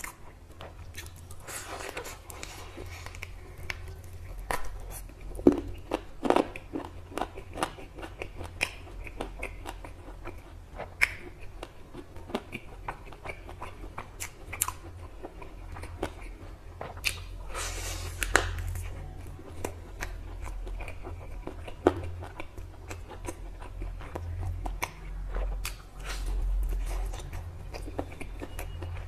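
A person biting into and chewing a fried chicken drumstick, with many short, sharp crunchy clicks scattered throughout.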